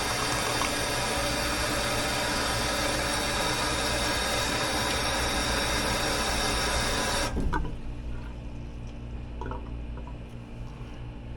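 Water being forced back through an air handler's clogged condensate drain line in a loud, steady rush. It cuts off with a knock about seven seconds in, and a quieter low hum stays underneath.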